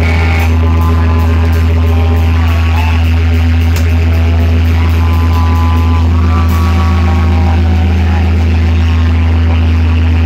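A loud, unbroken low drone from amplified electric guitars and bass, left sounding on their own, with steady higher tones stacked above it. Wavering higher tones drift in and out over it twice.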